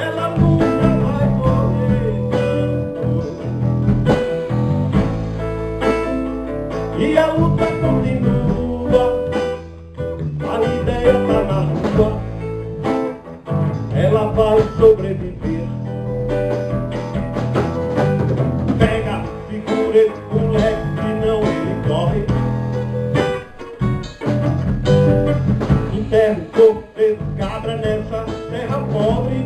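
Live band playing an instrumental passage of a song, led by guitar over a steady low bass part.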